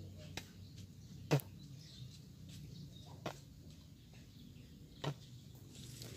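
Quiet outdoor ambience: a faint low hum broken by four short, sharp clicks or knocks, the loudest about a second and a half in.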